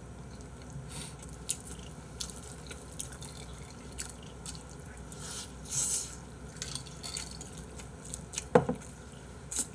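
Close-miked wet chewing and mouth clicks of a person eating pizza, with one louder knock about a second before the end.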